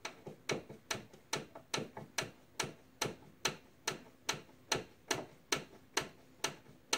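Hand screwdriver driving a screw into a fiberboard desk panel, making a sharp click with each twist, evenly spaced at about two and a half clicks a second.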